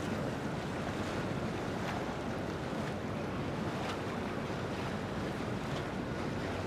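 Steady waterside noise: the wash of a boat's wake on the river and wind buffeting the microphone, with a faint low hum of a boat motor underneath.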